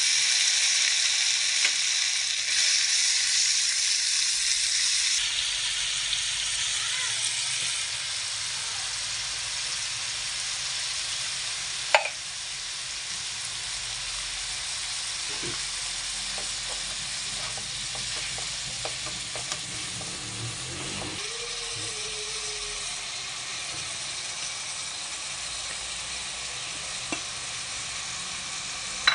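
Ground pork frying with onions and garlic in a nonstick pan, sizzling. The sizzle is loudest just after the pork goes in and settles lower over the following seconds, with a single sharp knock about twelve seconds in.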